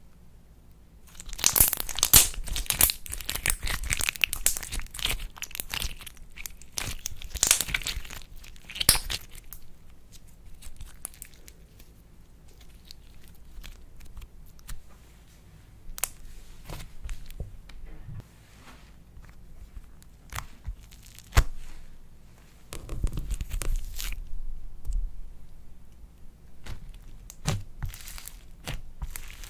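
Slime being worked by hand, with crackling, tearing and popping sounds. The crackling is densest in the first third, with a few sharp single pops later and another crackly stretch toward the end.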